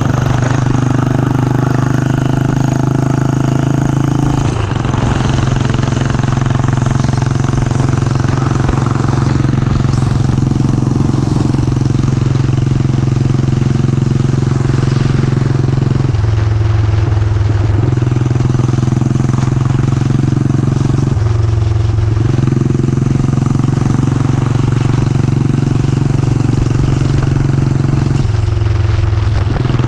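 Yamaha SR400's single-cylinder four-stroke engine running steadily under way, its note changing abruptly a few times as the engine speed changes.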